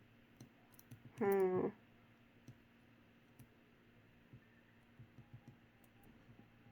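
Faint, scattered light clicks over a quiet room, with one short pitched vocal sound, like a brief hum, about a second in.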